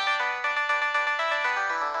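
Preloaded ringtone on a Samsung SCH-N356 mobile phone playing: a quick synthesized melody of short notes with several parts sounding together.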